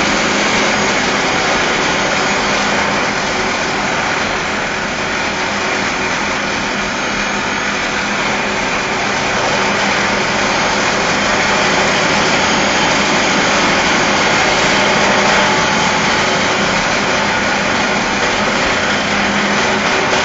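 Abrasive grinding wheel grinding the surface of a large round steel billet turning on drive rollers: a loud, steady grinding noise with a low machine hum beneath.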